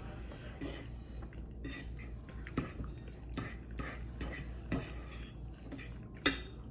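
Cutlery clinking and scraping against a plate during a meal: a string of short clicks, the loudest one near the end.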